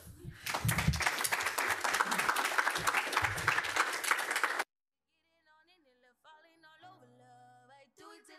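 Audience applauding for about four and a half seconds, cut off abruptly. After a brief silence, quiet music with a melody fades in.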